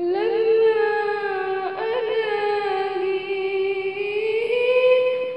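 A woman singing an unaccompanied ibtihal, an Islamic devotional supplication, drawing out one long vowel. She ornaments it with quick turns about two seconds in, then rises to a higher held note near the end.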